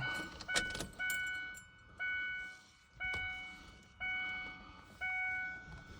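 2001 Ford Ranger's dashboard warning chime ringing about once a second, each ding fading before the next, with a few handling clicks in the first second.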